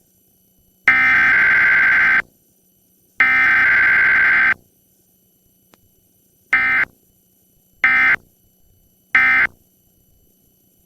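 Emergency Alert System SAME digital data bursts, the modem-like screech of the alert code. Two long header bursts about a second apart, then three short bursts about a second and a half apart, the length of the end-of-message code.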